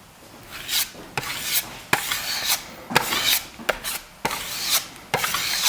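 Steel trowel pulled in repeated scraping strokes over a plaster surface, about two a second, smoothing a dark Venetian plaster mix pressed into cut cracks.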